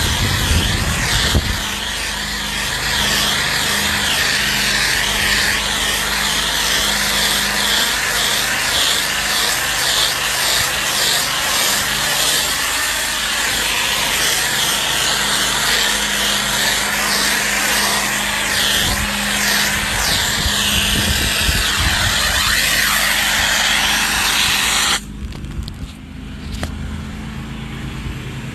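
Pressure washer engine running steadily under the loud hiss of a spray nozzle laying down soap pre-treatment on a driveway. Near the end the spray shuts off abruptly and the engine keeps running.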